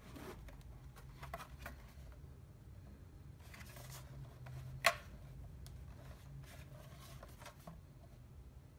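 Quiet handling of a boxed projector as it is lifted and turned in the hands: faint rustles and light taps, with one sharper click about five seconds in, over a low steady hum.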